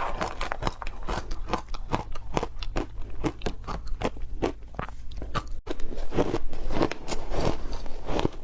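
Close-miked chewing of crunchy food, a quick steady run of sharp crunches at about three a second, broken by a brief dropout about two-thirds of the way through.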